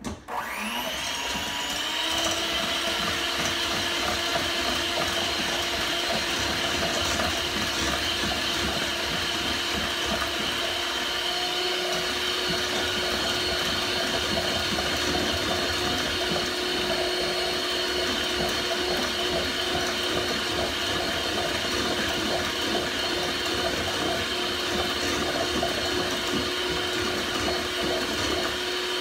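Electric hand mixer beating egg yolks in a stainless steel bowl: the motor spins up to speed in the first second, then runs steadily with a constant whine.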